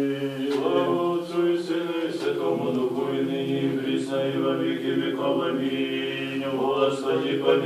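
Unaccompanied Orthodox liturgical chant sung by a small group of voices in long held notes.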